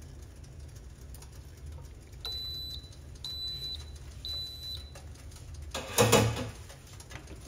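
Three high electronic beeps, each about half a second long and about a second apart, over a steady low hum. About six seconds in comes a short, loud burst of noise, the loudest moment.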